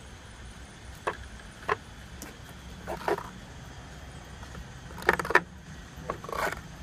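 Metal hand tools clicking and clinking against each other and the wooden insert as a pair of pliers is handled and set back in the tool box: a few separate sharp knocks, then two quick clusters in the second half, over a low steady rumble.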